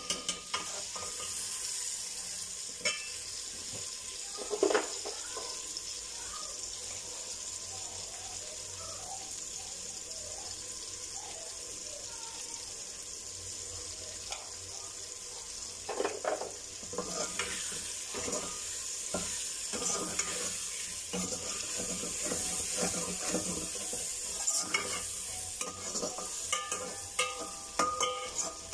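Potatoes, peas and tomatoes frying with a steady sizzle in oil in a metal pot. A metal slotted spoon stirs them, scraping and clinking against the pot, with the stirring heaviest about five seconds in, around sixteen seconds in, and through the last third.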